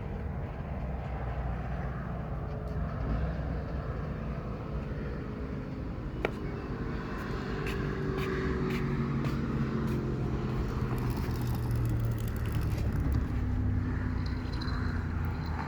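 Jet ski engines running on the water, a steady drone whose pitch shifts up and down as they move, growing a little louder toward the end. A single sharp click about six seconds in.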